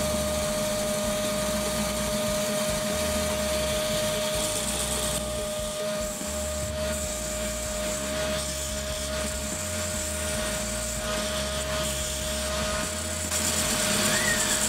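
Homemade disc sander driven by an old cordless drill with a worn gearbox, running with a steady whine while a small wooden block is pressed against its abrasive disc, a rasping rub that swells and eases as the block is worked.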